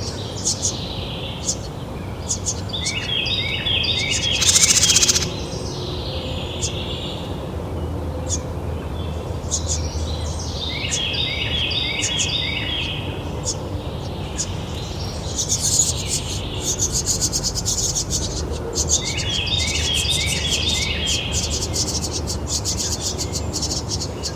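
Wild birds singing: one bird repeats a short phrase of quick notes about every eight seconds over many small high chirps from others. A brief rush of noise comes about five seconds in.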